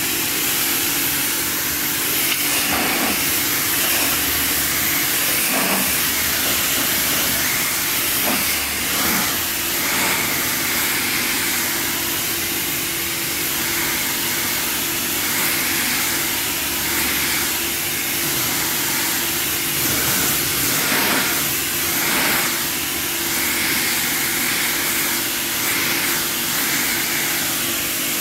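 High-pressure washer jet from a self-service car wash lance spraying onto a car's paint and glass: a steady, loud hiss of water, with a low steady hum underneath.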